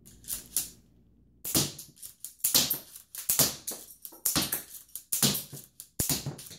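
K'nex rubber-band gun (the TR8) firing K'nex rods in quick succession: six sharp plastic clacks with a short rattle, about one a second, starting about a second and a half in.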